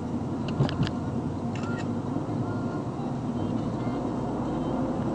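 Steady running noise of a car, with a few brief clicks in the first two seconds.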